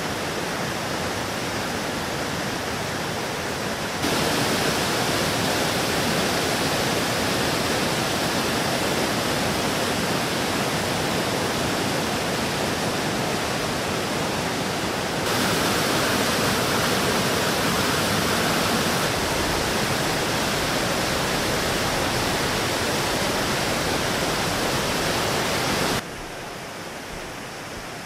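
Waterfall rushing: a steady roar of falling water that jumps louder about four seconds in and drops back near the end.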